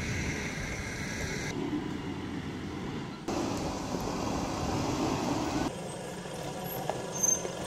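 A four-wheel-drive ute's engine and tyres crawling over a rocky bush track, in several short clips that cut abruptly from one to the next. A short high chirp sounds near the end.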